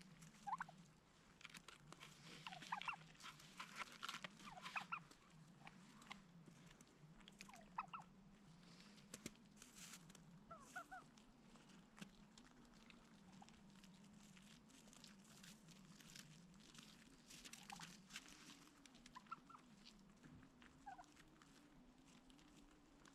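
Faint calls of farm poultry: scattered short, high peeps and chirps, busiest in the first five seconds and again near the end, over a low steady hum.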